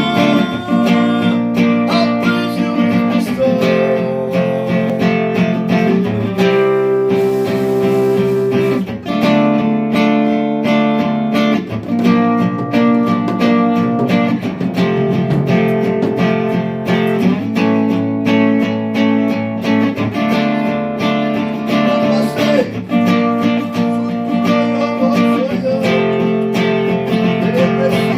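Guitar strummed steadily through a repeating chord progression, the chords changing every two to three seconds, as a sound check.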